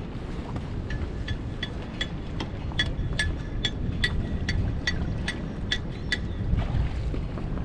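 Wind on the microphone and water lapping at the shore. About a second in, a run of roughly fourteen short, ringing clicks starts, two or three a second, and stops just after six seconds.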